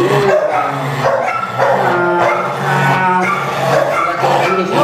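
A pit bull barking and giving drawn-out howling, whining cries, the longest in the middle. It is protesting at being handled by the vet.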